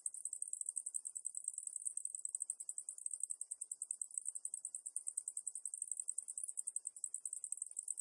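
Cicadas calling: a steady, high-pitched insect song pulsing fast and evenly without a break.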